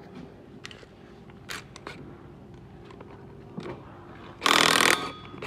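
An electric impact wrench runs in one short burst of about half a second near the end, loosening a propeller-shaft flange bolt. Before it come a few light clicks and knocks as the shaft is turned by hand, over a steady low hum.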